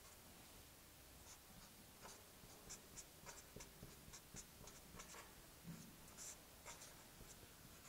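Felt-tip marker writing on paper: faint, short scratchy strokes coming in quick irregular runs.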